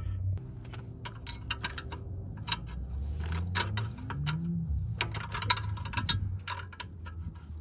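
Irregular metallic clicks and ticks of hand tools and parts against a new brake caliper and its brake hose fittings as they are fitted to a truck's front wheel, over a low steady hum.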